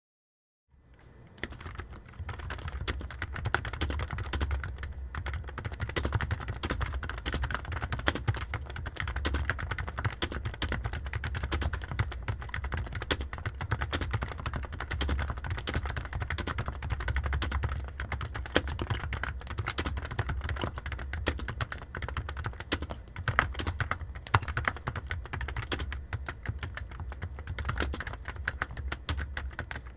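Rapid, continuous typing on a computer keyboard, dense key clicks starting about a second in, over a steady low hum.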